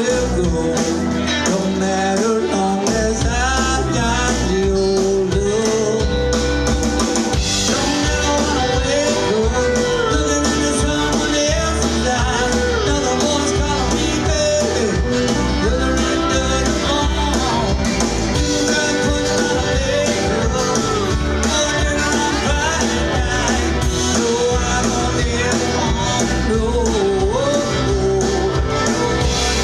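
Country band playing a song with a singer, guitar and a steady beat.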